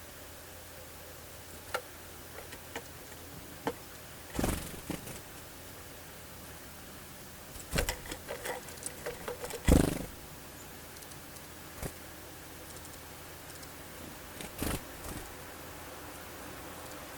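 Irregular sharp taps and knocks over a steady background hiss, with a quick run of taps shortly before the loudest knock about ten seconds in.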